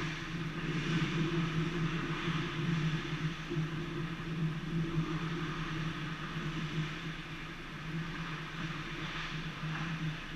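Ice rink ambience: a steady low machinery hum, with the faint noise of the game from the far end of the ice over it.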